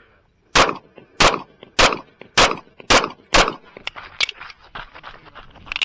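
Six pistol shots from a Kimber Custom II 1911 in .45 ACP, fired about every half second, followed by a scatter of fainter sharp cracks and clicks.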